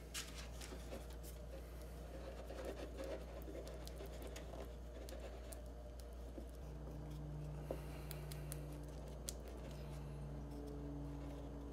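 Wooden craft stick scraping and stirring glue in a small wooden dish: faint, irregular scratchy ticks, mixing the adhesive for a glue-up.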